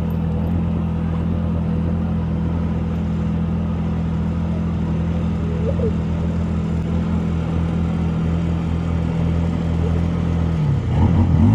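A vehicle engine running at a steady speed, its pitch shifting about a second before the end.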